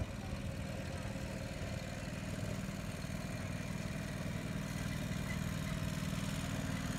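Farm tractor engine running steadily, growing a little louder.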